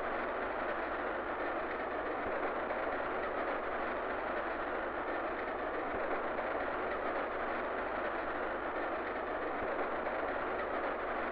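Steady running noise of a train heard inside a carriage, an even rush with no distinct beat of wheels over rail joints. It has the dull, narrow tone of an old film soundtrack.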